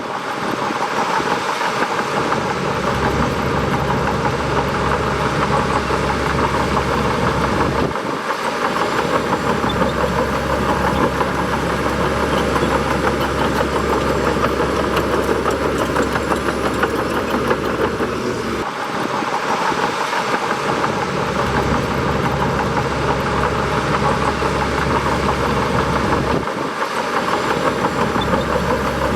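A bulldozer's engine runs steadily through the work. Its low drone dips briefly three times, near a third, two-thirds and most of the way through.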